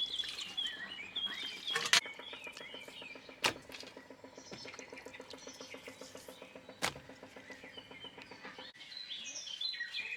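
Small birds chirping, with two sharp knocks and a steady low hum in the middle stretch.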